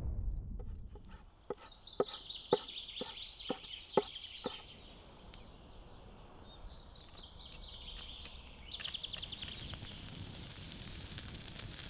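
Forest ambience with birds chirping and a fast trill about nine seconds in. Early on, seven evenly spaced knocks come about two a second, like steps on the forest floor. Later, fine clicks like a wood fire crackling can be heard.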